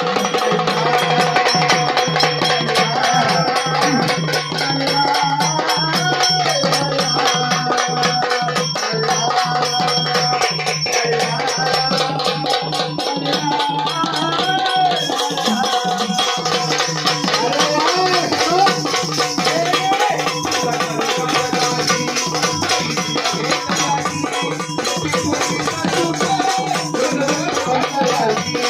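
Instrumental passage of Marathi gondhal folk music: steady, rapid hand-drum strokes under a melody instrument holding sustained notes.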